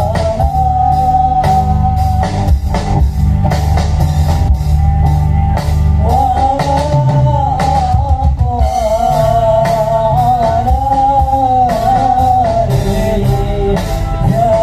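Live music played loud through a large outdoor PA sound system: a singer holding long, wavering notes over a drum kit and heavy bass.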